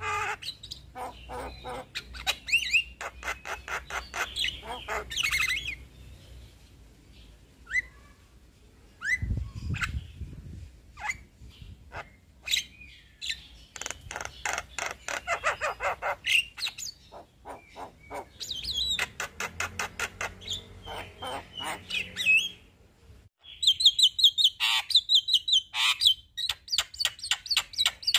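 Male Javan myna singing: long bursts of fast rattling, rolling notes, broken by a few short whistled notes and, near the end, a run of high chirps.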